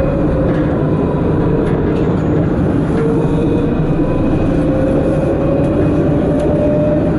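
Tram running along its track, heard from the driver's cab: a steady rumble with a whining tone that sinks a little in pitch and then climbs again toward the end.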